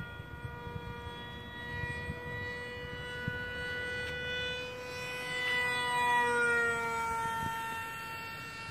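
Motor of a radio-controlled model jet in flight, a steady high whine that swells to its loudest about six seconds in and slides down in pitch as it goes by.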